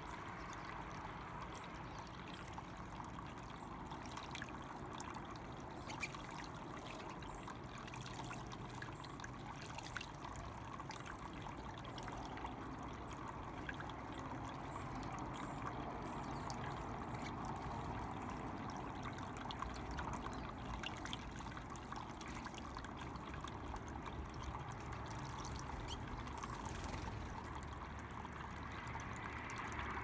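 Small pump-driven tabletop fountain trickling steadily, a thin stream of water falling from its spout into the bowl below.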